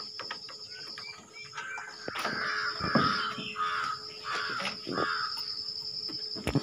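A crow cawing repeatedly, about five caws in quick succession starting about two seconds in, over scattered sharp clicks and knocks.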